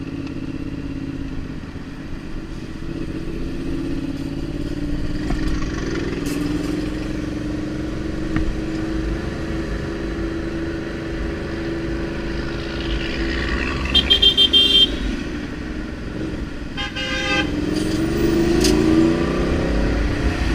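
Motorcycle engine running in traffic, its pitch rising and falling with the throttle, over a low wind rumble. About two thirds of the way in a horn sounds in a quick run of short beeps, and another short honk follows a few seconds later.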